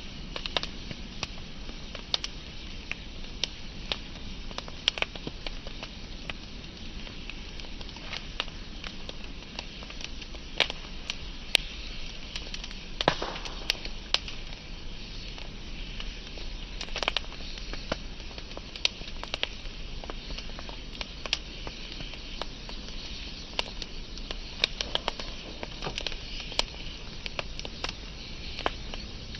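Wood fire burning, with a steady hiss and irregular sharp crackles and pops from the burning logs.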